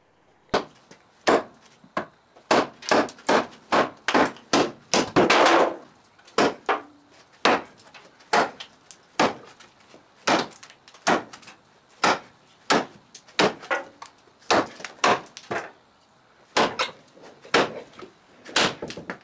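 Large hand-forged leaf-spring knife chopping into a 2x4 board: a long run of sharp wooden chops, about three a second between roughly two and six seconds in, then slower, about one every second or so.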